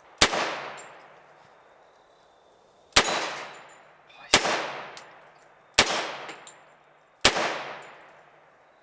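Five single shots from a compact submachine gun at an outdoor range, one every one and a half to three seconds. Each crack is followed by a tail that fades over about a second.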